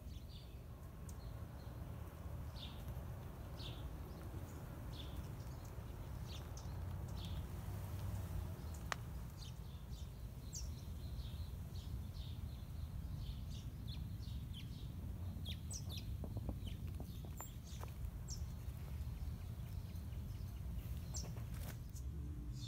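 Birds chirping, many short high calls scattered throughout, over a steady low background rumble.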